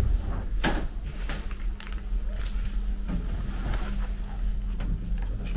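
Scattered light knocks and clicks over a steady low hum.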